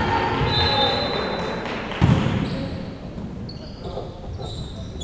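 Volleyball being struck hard about two seconds in, then sneakers squeaking on the hardwood court during the rally, over the chatter of players and spectators in the gym.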